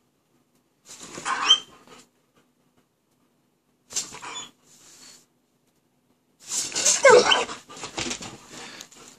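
German Shepherd vocalizing in play: short bursts of high, rising whines, about a second in and about four seconds in, then a longer, louder run of whining from about six and a half to nine seconds.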